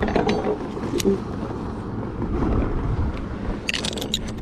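Wind buffeting the microphone over a steady rumble of motorboats, with a short bit of voice at the start and a quick cluster of sharp clicks near the end.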